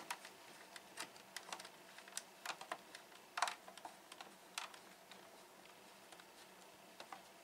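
Hand screwdriver driving ordinary screws into the case of a Fisher-Price PXL 2000 TV, in place of removed security screws: faint, irregular clicks and ticks as the tip works in the screw heads, dying away about five seconds in.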